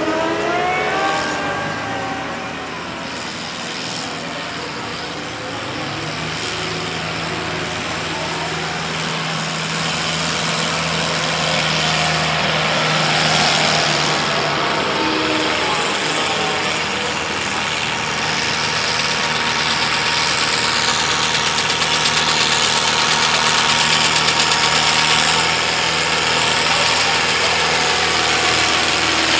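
Farm tractor's diesel engine running hard under load as it drags a pulling sled down the track, holding a steady pitch and growing louder as it comes closer.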